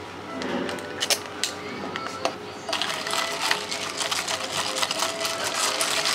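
A plastic straw clicks through the lid of an iced latte cup about a second in. It is then stirred, and ice cubes rattle quickly against the plastic cup.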